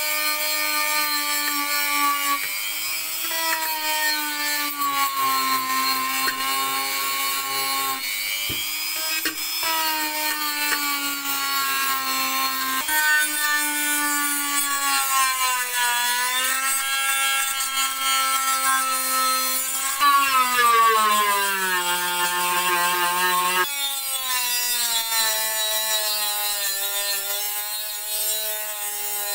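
Cordless rotary tool with a small cylindrical grinding stone, grinding a kerosene stove's metal burner casing. The motor's whine sags in pitch and recovers as the bit is pressed into the metal and eased off, deepest a little past two-thirds of the way through, over a steady high grinding hiss.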